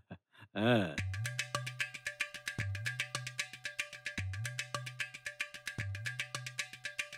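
Background film score: quick, evenly spaced wood-block ticks over held notes and a low bass figure repeating about every second and a half, starting about a second in.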